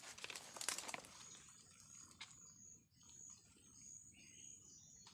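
Faint forest ambience: a high, thin insect trill that pulses steadily, with a few soft clicks in the first second.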